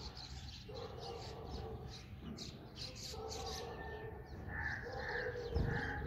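Many house sparrows chirping in quick short high notes, mixed with deeper repeated calls from another animal. A dull thump comes near the end.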